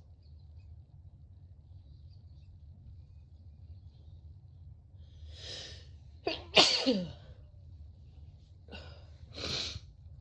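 A person with a cold sneezing: a noisy breath in, then one loud sneeze about six and a half seconds in, its voiced cry falling in pitch. Two quieter breathy bursts follow near the end.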